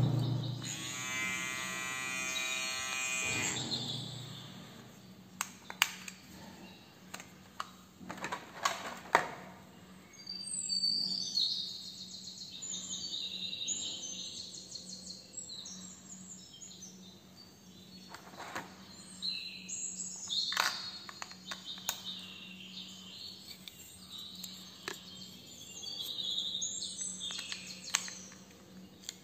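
Scattered clicks and taps of hard plastic as a NOVA NHC 8005 hair clipper is handled and its battery taken out, with a short buzz in the first few seconds.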